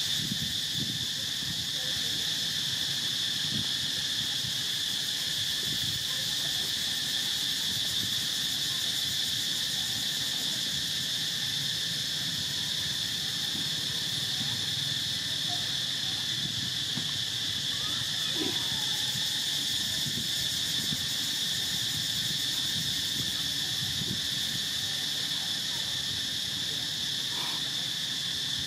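Steady, high-pitched insect chorus, crickets or cicadas, droning without a break.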